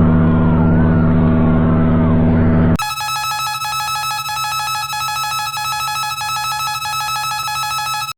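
Electronic emergency-alert-style alarm tones: a loud, steady low drone with wavering higher tones over it, then, about three seconds in, an abrupt switch to a harsh, rapidly pulsing buzz that runs for about five seconds and stops suddenly.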